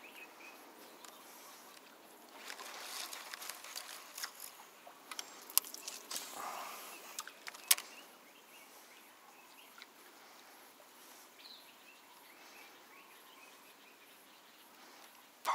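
A few seconds of rustling handling noise with two sharp clicks, over quiet outdoor ambience.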